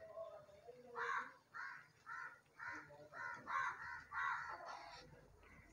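A crow cawing about eight times in a quick even series, about twice a second. Faint under it, the oil sizzles as bread pieces deep-fry in a pan.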